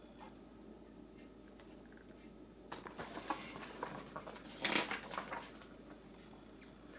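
Paper rustling and handling noises for a couple of seconds, typical of a picture book's page being turned.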